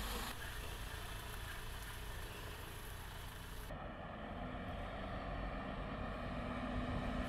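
Heavy truck running at low speed, a steady low rumble. The sound changes abruptly about halfway, and a faint steady hum comes in.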